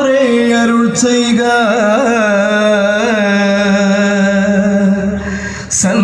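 Music with a voice singing long, held notes that waver and turn in pitch, with a brief dip in loudness near the end.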